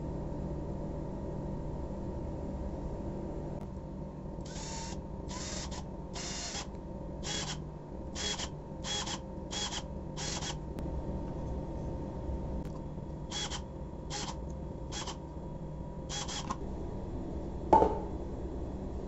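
Cordless drill driving screws into plywood in short trigger bursts, about a dozen in two runs, as a speaker is screwed to its baffle. A single sharp wooden knock near the end.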